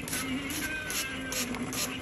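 Background music with a steady beat: a crisp high percussion stroke about two and a half times a second under held notes.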